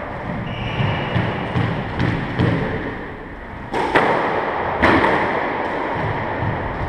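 Squash rally: the ball being struck by rackets and hitting the court walls. Lighter knocks come first, then two loud, sharp hits about four and five seconds in.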